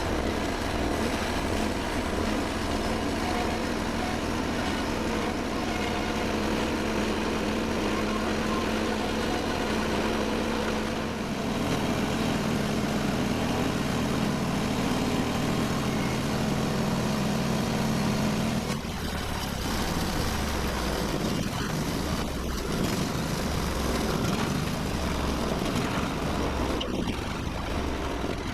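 Portable band sawmill's engine running steadily under load as the blade slabs a sweet gum log. About two-thirds of the way through, the engine note drops and a slow low pulsing comes in.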